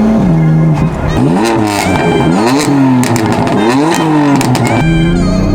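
BMW F82 M4's twin-turbo straight-six with catless downpipes and a tune, its revs rising and falling in several quick sweeps over a few seconds, with sharp pops among them.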